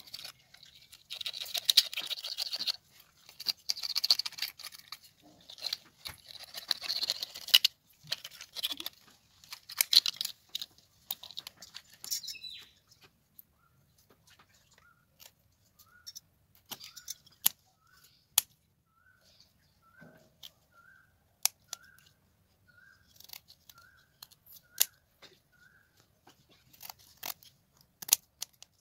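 Scales being scraped off a tilapia with a wooden stick, in quick rasping strokes for about the first twelve seconds. Then come scattered sharp snips of scissors cutting the fins. Through the middle a high chirp repeats steadily, a little more than once a second.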